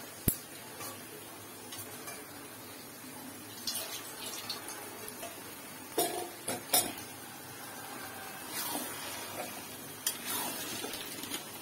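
Metal spoon and spatula clinking and scraping against a cooking pan while chicken gizzards and liver are stirred and fried in a spice paste. There is a sharp clink about a third of a second in, two more around six to seven seconds, another near ten seconds, and short scraping strokes in between.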